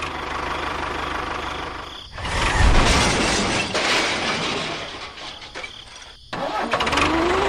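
An engine running with a fast, even low beat. It gets louder about two seconds in, drops abruptly a little after six seconds, then comes back.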